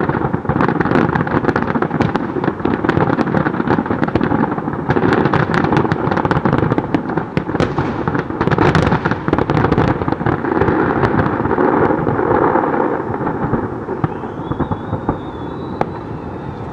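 Large aerial fireworks shells going off in a dense closing barrage: a continuous rolling mass of booms and crackling bursts that thins out and quietens about two seconds before the end.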